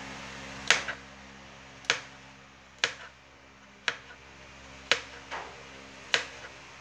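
Kitchen knife slicing garlic cloves on a plastic cutting board: six sharp taps of the blade hitting the board, about one a second, some followed by a lighter second tap.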